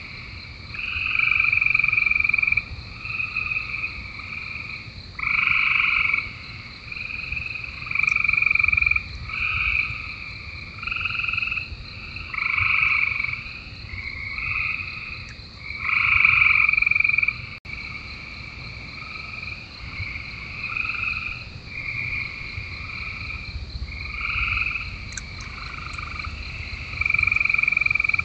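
A chorus of frogs calling from a pond: calls about half a second to a second and a half long, following one another with short gaps and at times overlapping.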